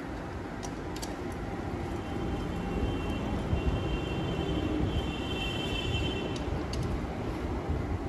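A few light metallic clicks from a hand tool on the engine's cover bolts, over a steady low background rumble. A faint high whine comes in for a few seconds in the middle.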